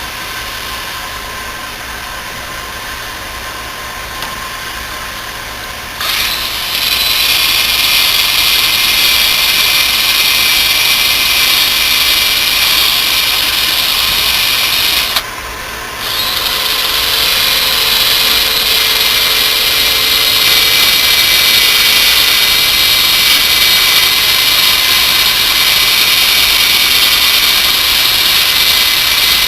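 Cordless drill spinning a wire brush against the tank's painted metal, scuffing contact points down to bare metal: a loud, steady high-pitched grinding whir that starts about six seconds in, stops for about a second midway, then runs again. A steady lower hum is heard before the drill starts.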